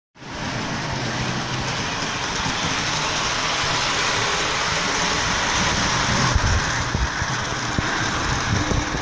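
Lionel Polar Express model train running along its track: a steady running rumble and hiss, with a few low knocks about six to seven seconds in.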